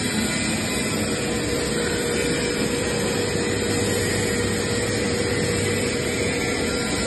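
Overhead crane's electric hoist motor running on a CG Emotron variable frequency drive: a steady mechanical hum with a steady whine that sets in about half a second in and fades near the end.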